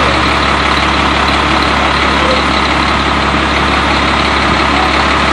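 Fire engine's engine idling, loud and steady with no change in pitch.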